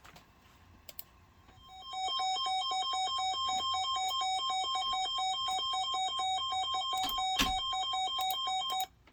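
Electronic emergency-alert attention tone: fast, even beeping on two pitches, several beeps a second, starting about two seconds in and stopping just before the warning message. A sharp click sounds about seven seconds in.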